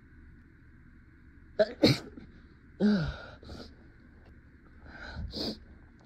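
A woman sneezing a few times, the first sharp sneeze about two seconds in, with more sneezes over the following seconds. She blames the sneezes on allergies.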